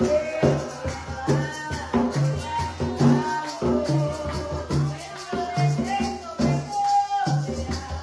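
Bullerengue music: a sung melody over a hand drum beating a steady pulse of about two strokes a second, with shaken rattles.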